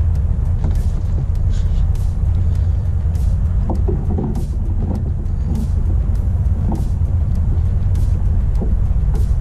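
Wind buffeting the microphone on the open water as a steady low rumble, with a short crisp sound repeating a little more than once a second.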